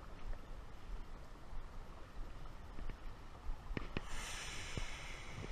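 River current flowing past the wading angler, with a low wind rumble on the microphone. A few light clicks come near the end, and a brighter hiss sets in about four seconds in.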